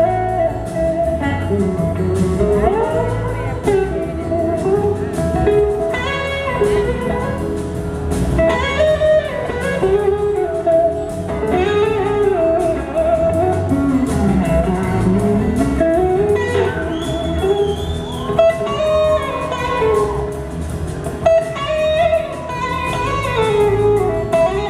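Live blues-rock band: an electric slide guitar on a Gibson SG plays a lead solo of long, bending, gliding notes over bass and drums.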